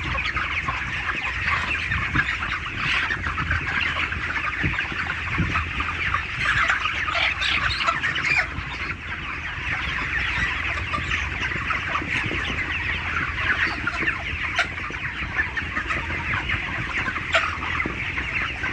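A large flock of 35-day-old poultry chicks calling all at once in a dense, unbroken chatter of overlapping cheeps and clucks, over a low steady rumble.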